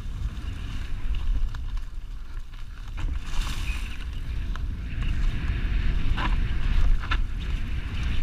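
Wind buffeting the microphone of a helmet-mounted camera on a fast mountain bike descent, with a steady low rumble and tyre hiss on the dirt trail. Several sharp knocks and rattles from the bike jolting over bumps, about three seconds in and again near six and seven seconds.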